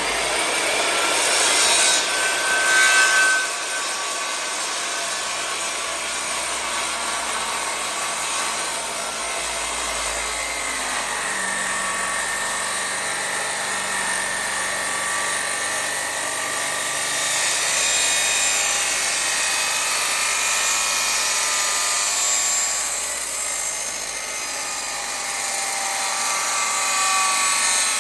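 10 1/4-inch Makita circular saw running steadily under load as it is pushed slowly through an 8x14 timber along the tenon shoulder line, blade cutting wood with a continuous motor whine. This is the first, finished shoulder cut, taken to half the timber's depth.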